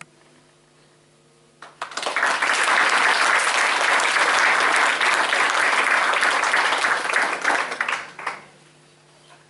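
Audience applauding: the clapping breaks out about a second and a half in, holds steady, and dies away about eight seconds in.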